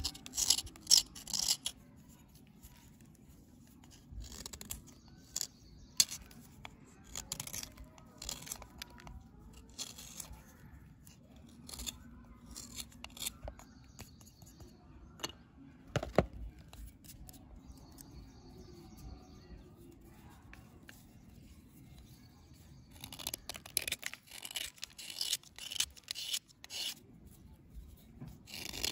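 A knife blade scraping the reddish crust off a dry bar in short strokes: a dense flurry at the start, sparse scrapes and one sharp click about 16 seconds in, then another dense run of strokes near the end.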